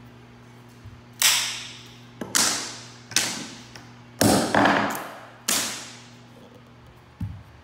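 Hammer driving nails through a carpet tack strip into a hardwood floor: six sharp blows about a second apart, each ringing briefly, and a lighter tap near the end.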